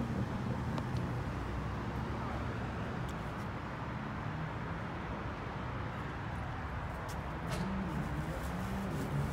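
Steady, indistinct background noise of a shop interior, with a faint wavering murmur near the end.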